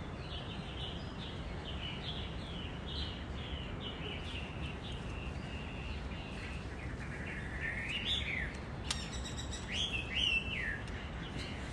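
Birds chirping: a quick run of short high chirps, then near the end a few louder calls that sweep up and down in pitch, over a steady low background rumble.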